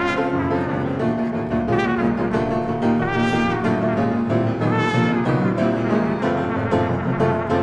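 Improvised jazz: trumpet playing wavering phrases over grand piano and double bass.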